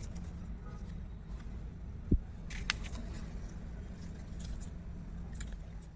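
A handmade paper greeting card being handled, with a few short paper crackles and faint ticks over a steady low rumble. A single dull low thump about two seconds in is the loudest sound.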